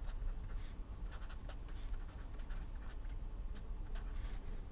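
Pen writing on paper: short scratchy strokes coming on and off, over a low background hum.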